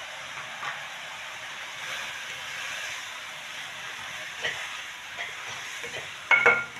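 Chicken and carrots sizzling in oil in a stainless steel wok while a silicone spatula stirs and scrapes through them. Near the end, two sharp knocks of the spatula against the pan set the metal ringing briefly.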